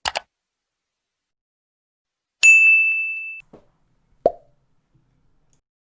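Bubble-pop sound effects with silence between them: a quick double pop, then about two and a half seconds in a bright ringing ding lasting about a second, and a single short plop near the end.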